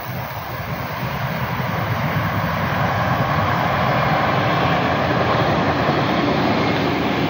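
ÖBB Talent electric multiple unit passing close by, the rush of its wheels on the rails growing steadily louder as it approaches, with a faint steady whine from the train rising in the second half.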